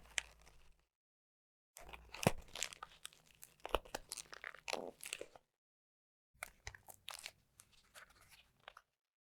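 Cigarette pack being handled: crinkling and crackling of the cellophane wrapper and card box, in three separate takes of crackles and small clicks with silence between them.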